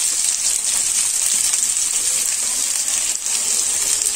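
Sliced onions frying in hot oil in a non-stick kadai: a steady sizzle with faint scattered crackles, just after the onions go into the oil.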